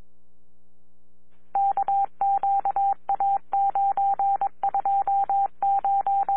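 Steady hum on a police radio scanner feed, then from about a second and a half in a single beep tone keyed on and off in a run of short and long beeps: a Morse code station identification sent over the radio channel.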